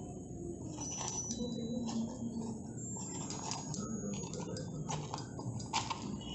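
Small kitchen knife cutting around the stem of a green capsicum to core it: scattered short crisp clicks and cuts over a faint steady background noise.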